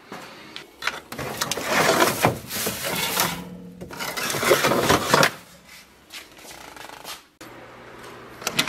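Rummaging through stored decorations: rustling and scraping with a few sharp knocks as a round Valentine's door plaque is pulled out and handled, dying down about five seconds in. A couple of clicks come near the end.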